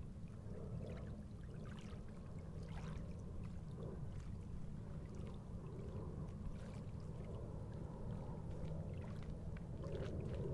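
Outdoor ambience dominated by a steady low rumble of wind on the microphone, with faint, irregular light ticks scattered through it.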